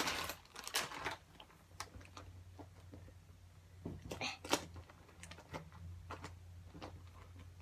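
Scattered light clicks and taps of small objects being handled, at irregular intervals over a low steady hum.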